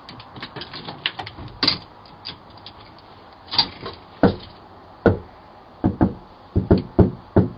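A series of irregular knocks and thumps picked up by a doorbell camera's microphone: light clicks at first, then heavier strokes, several of them in quick pairs, from about halfway through.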